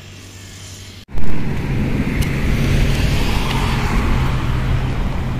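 Road traffic noise: a steady low rumble with a passing-car hiss. It starts abruptly about a second in and stays loud.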